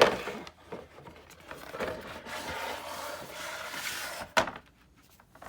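Folded cardboard board-game board being handled on a table: a sharp knock, then a couple of seconds of sliding and rubbing, then another sharp knock as it is set down.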